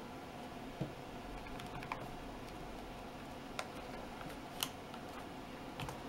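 Five separate small plastic clicks and taps, irregularly spaced, from a tablet and its Bluetooth keyboard cover being handled, over a faint steady hiss.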